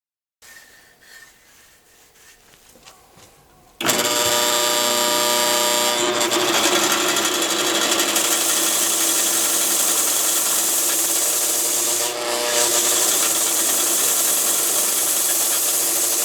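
Faint handling clicks, then about four seconds in a steady, loud rasping of a hand tool working wood.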